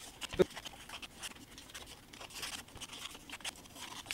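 Short, light scraping strokes of a small hand file on the edges of small model-kit parts, filing off the nubs left from cutting them out of the sprue. A single sharp knock about half a second in.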